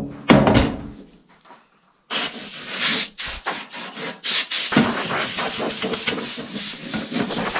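A clunk, then about two seconds in an air compressor's blow gun starts hissing, surging and dipping as compressed air blows sanding dust off a sheet-metal toolbox.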